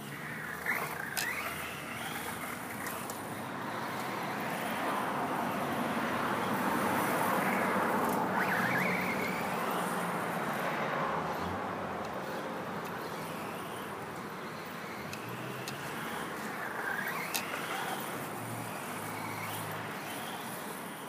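Traxxas Slash 4x4 RC truck with a Castle Creations Mamba Max Pro 2400kv brushless motor driving laps. Its electric motor and drivetrain whine and the tyres churn over grass, with a few brief rising whines as it accelerates. It is loudest about the middle, as it passes nearest.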